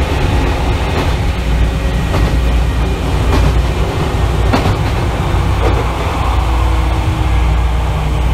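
Loud running noise heard inside the motor car of an Izukyu 8000 series (ex-Tokyu 8000 series) electric train in motion: a steady deep rumble with a few sharp knocks, and a faint steady hum joining about six seconds in.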